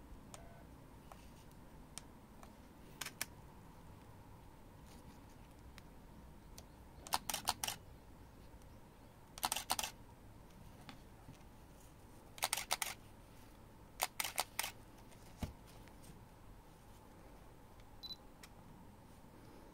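Canon EOS Kiss camera shutters firing: a double click about three seconds in, then four short bursts of rapid continuous shots, and a couple of single clicks near the end.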